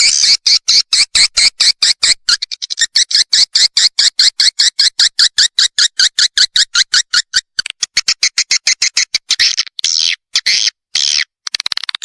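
Swiftlet lure-call recording: rapid, evenly spaced chirps of edible-nest swiftlets, about five a second, with silence cut between them. The chirps give way to a few longer, buzzier chirrs in the second half. It is played in a swiftlet nesting house to draw swiftlets in.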